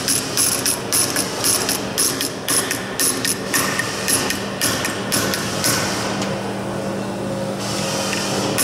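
Rapid hammer taps, about three a second, on the aluminium flange of an aircraft fuselage former clamped in a bench vise, working the flange gradually over the inner radius without splitting it. The tapping stops for about a second and a half near the end, then starts again.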